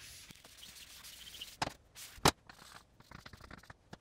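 Blackboard eraser rubbing across a chalkboard for about a second and a half, followed by two sharp knocks, the second the louder.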